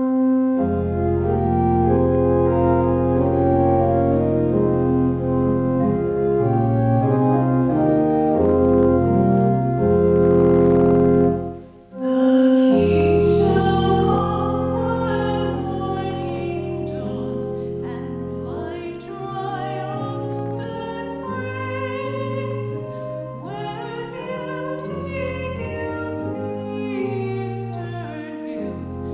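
Church organ playing held chords over a deep bass, breaking off briefly about twelve seconds in. The organ then resumes and a woman cantor sings the opening hymn over it.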